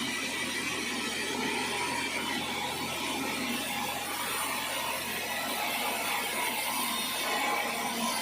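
Sawmill saw running steadily through an acacia log, a continuous machine-and-cutting noise with a few held tones and no breaks.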